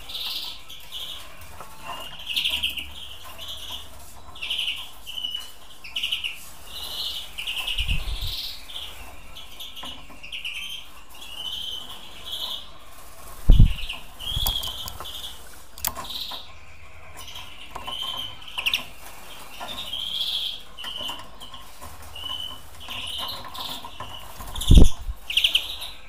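Caged European greenfinches giving short high chirps, repeated about once a second, with a few low thumps from wing flaps. The loudest thumps come about halfway through and near the end.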